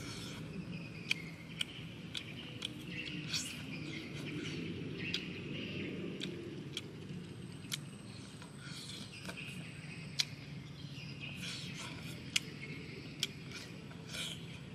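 Birds chirping and insects in the background, with irregular sharp clicks and smacks of someone eating grilled beef by hand and chewing.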